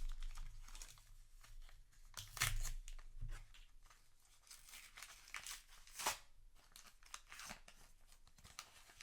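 Foil booster pack wrapper crinkling and tearing as a trading-card pack is handled and opened, in several irregular crackly bursts, the loudest about two and a half and six seconds in.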